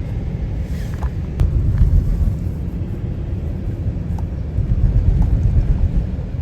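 Low, steady rumble of a car on the road, swelling twice for a second or so.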